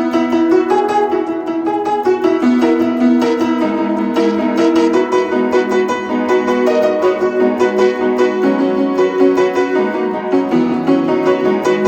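Background music led by piano or keyboard, with quick, evenly repeating notes.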